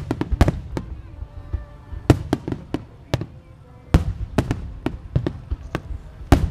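Star mine fireworks barrage: a rapid, irregular string of sharp aerial shell bursts over a continuous low rumble, easing briefly a little past three seconds in before the bangs resume.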